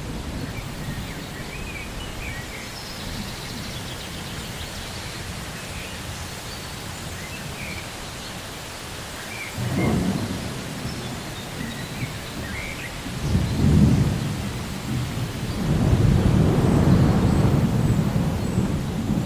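Steady rainfall with low rumbles of thunder: a short roll about ten seconds in, a stronger one a few seconds later, and a longer rumble through the last few seconds.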